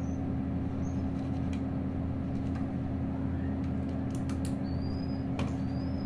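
A steady low hum with a constant drone, and two short faint high rising chirps about two thirds of the way through.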